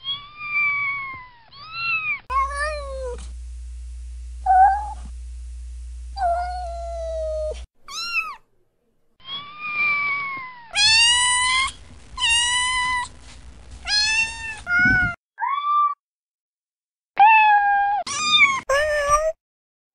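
Domestic cats meowing: a run of about fifteen separate meows, each rising and falling and lasting under a second, from several recordings joined one after another. A steady low hum sits behind a few of them early on.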